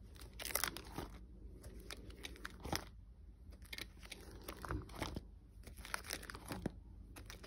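Clear plastic card-sleeve pages in a ring binder crinkling and crackling as they are turned and handled, in irregular bursts every second or two.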